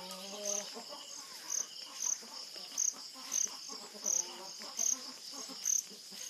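Insects chirping: a steady high trill with a louder short chirp repeating about twice a second. A faint low call sounds under it at the start.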